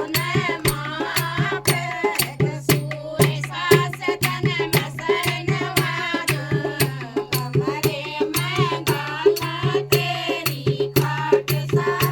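Haryanvi folk song: a voice singing a wavering melody over a steady beat of percussion strokes, about three a second.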